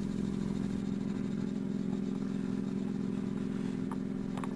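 Electric random orbital sander running steadily as a buffer, a low even motor hum, with a couple of faint clicks near the end.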